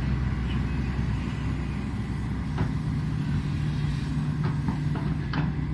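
Matador Shantui ME210LC-1 excavator's diesel engine running steadily while digging, with several short sharp knocks in the second half from the bucket and arm working.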